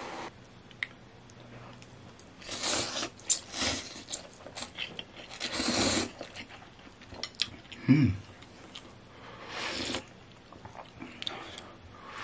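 A person slurping and chewing instant tom yum noodles: about four long, airy slurps, with wet chewing and small mouth clicks in between. A brief, loud, low sound comes about eight seconds in.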